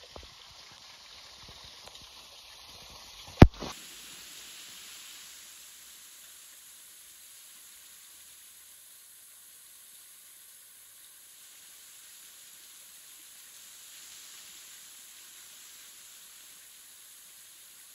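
Steady hiss of falling water from a small waterfall, with a few faint knocks early and one sharp loud click about three and a half seconds in.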